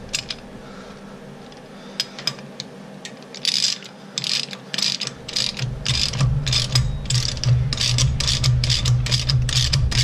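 Socket ratchet clicking as it turns a rocker-arm adjusting nut on a Ford 289 V8's cylinder head while the valve lash is set. A few single clicks come first, then quick back-and-forth strokes about twice a second. A steady low hum comes in about halfway through.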